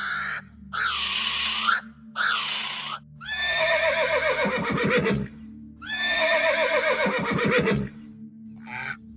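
Two short shrill calls in the first three seconds, then a horse whinnies twice. Each neigh starts high, slides down in pitch and ends in a rapid low flutter.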